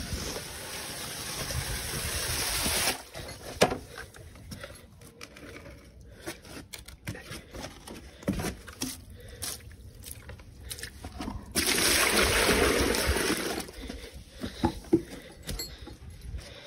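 Water spraying in two bursts: one at the start that cuts off abruptly after about three seconds, and another of about two seconds near the end. Scattered knocks and drips come in between.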